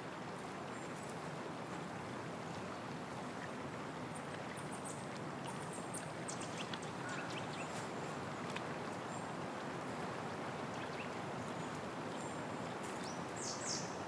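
Steady rushing of a small forest stream, with a few faint high chirps and ticks scattered over it.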